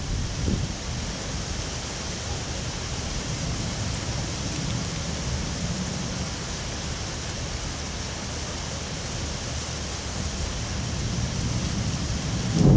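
Steady hiss of heavy rain in a thunderstorm, with a low rumble of thunder swelling near the end.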